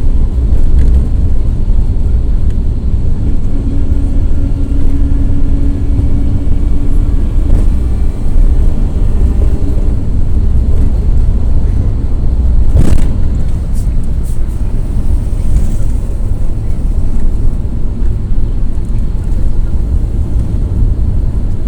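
Cabin sound of a Volare W9C minibus under way, its Cummins ISF 3.8 four-cylinder diesel running steadily with heavy low road rumble. A steady whine comes in for a few seconds about four seconds in, and a single sharp knock is heard about halfway through.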